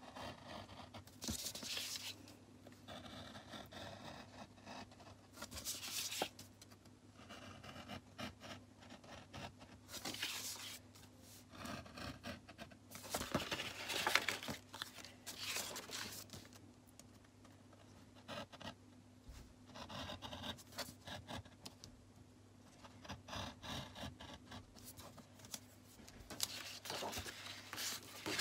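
Craft knife blade cutting through paper in irregular short strokes, each stroke a dry scratchy scrape.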